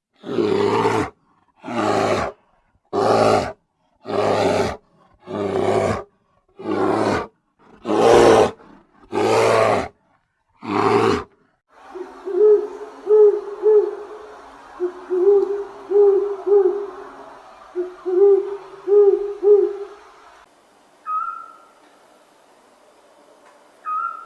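A big cat roaring, a run of about nine loud, rough calls roughly a second and a half apart, followed by an owl hooting in groups of two and three. Near the end come two short high calls.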